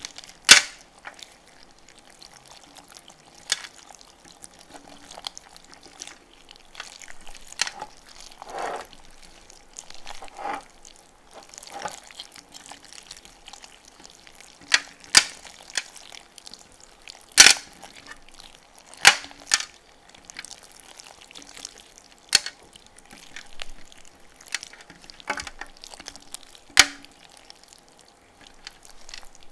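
Yellow slime squeezed and kneaded by hand: soft wet squelching broken by sharp pops and crackles every second or two, the loudest in the second half.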